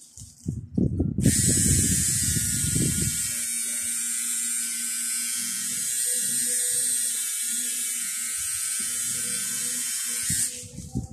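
Electric tattoo machine buzzing steadily as the needle works into the skin of a leg. It starts about a second in and cuts off shortly before the end.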